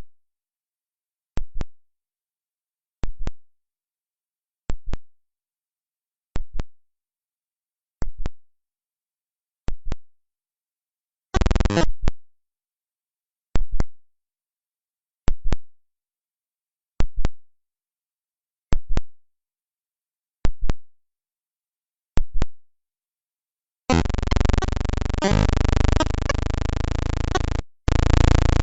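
Sonification of planetary orbits: short synthesized notes sound one at a time, about every 1.7 s, each starting sharply and fading quickly. About 24 seconds in, a dense, layered synthesizer chord comes in and holds.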